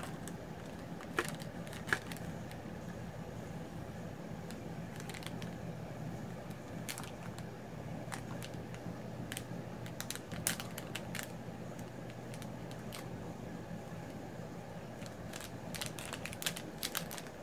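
Handling of a metallic anti-static bag and a circuit board in its cardboard box: scattered crinkles and light clicks in small clusters, over a steady low hum.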